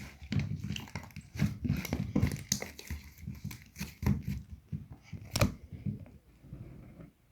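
Slime being squeezed and worked by hand, giving dense, irregular crackles and pops that thin out near the end.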